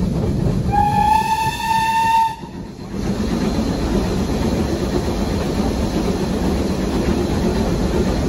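Steam locomotive whistle blown once, a single note lasting about a second and a half and rising slightly in pitch, over the steady rumble and clatter of a steam train's carriages running along the line.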